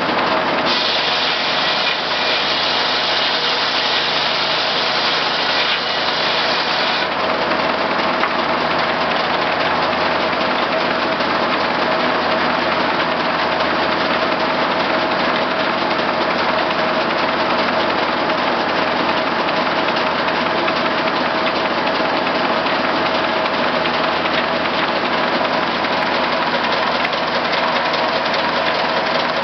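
J. A. Vance circular sawmill running steadily, driven by its Case six-cylinder power unit. An extra high hiss joins in about a second in and stops about seven seconds in.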